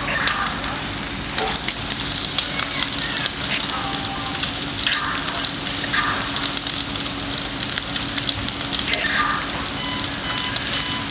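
House fire burning, its flames crackling and hissing steadily, with a steady low hum underneath.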